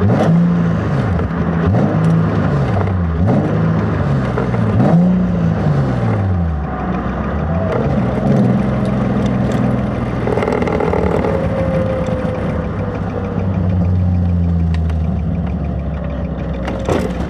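Nissan 350Z's V6 engine heard from inside the cabin, revving up and falling back about five times in the first six seconds, then running more steadily with a slowly falling whine in the second half.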